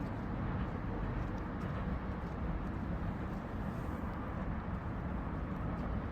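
Steady outdoor street ambience: an even, low rumble with no distinct events.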